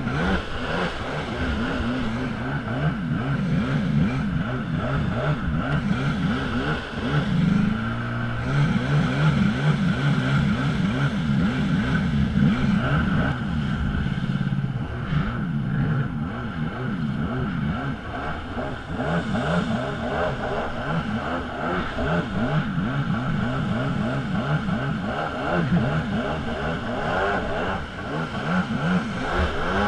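Jet ski engine running at speed, its pitch rising and falling with the throttle as the craft turns, with water spray rushing past.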